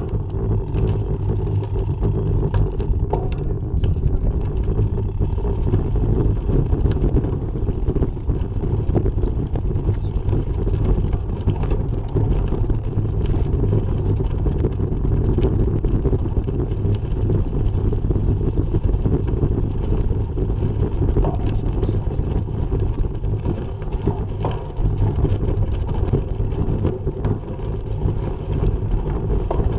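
Steady wind rushing over the microphone of a camera mounted on a moving bicycle, with the bike's tyres rolling over dirt and gravel.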